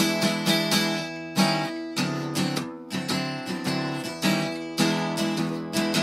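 Background music: acoustic guitar strumming chords in a steady rhythm.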